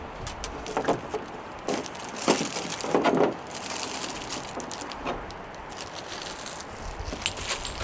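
Plastic bag crinkling and small plastic parts clicking as a bag of coolant-funnel adapters is picked up and handled, loudest about two to three and a half seconds in.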